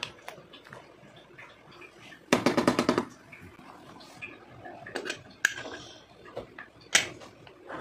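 An aluminium pressure cooker being handled: a short rapid rattle about two seconds in, then sharp metallic clicks and a loud clank near the end as the lid is shut and the whistle weight is set on the vent.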